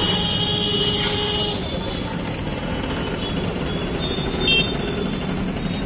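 Busy road traffic running steadily, with a vehicle horn sounding for about the first second and a half and again briefly later.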